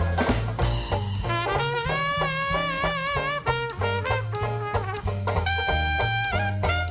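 New Orleans jazz band playing a swing tune: brass horns, trumpet to the fore, hold and bend notes with vibrato over a steady walking bass line.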